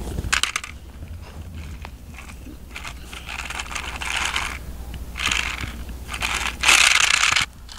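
Toy fire trucks pushed and set down on rough asphalt: gritty scraping of their small wheels and bodies on the surface, in several short bursts, the loudest near the end, with a few clicks at the start.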